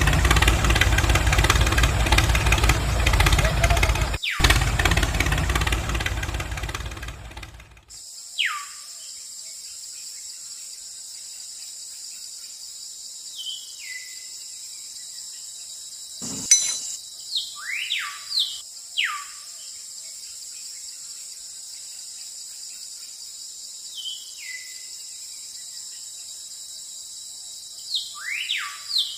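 An engine-like running sound, loud, fading out about eight seconds in. Then a steady high insect drone with repeated short falling bird chirps and a single sharp click about halfway.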